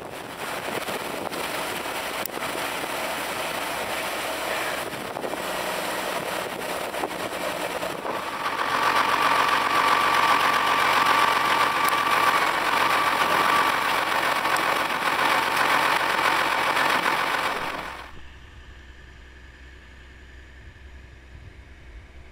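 Slurry being pumped from one tanker to another through an overhead filling pipe, with the tractor engine running: a loud, steady rushing noise that grows louder about eight seconds in. About eighteen seconds in it cuts off suddenly, leaving only a quieter low engine hum.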